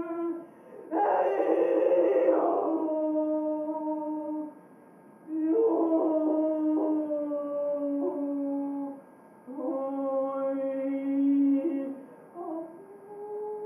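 A voice holding long wordless notes a few seconds each, with short breaks between them and a rough, breathy stretch about a second in. Near the end the pitch slides upward.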